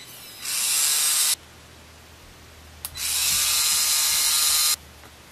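3Doodler 3D pen's filament-feed motor whirring in two bursts, the first about a second long and the second nearly two seconds, as it pushes out plastic to weld a seam. The pitch rises briefly as the second burst starts, just after a click.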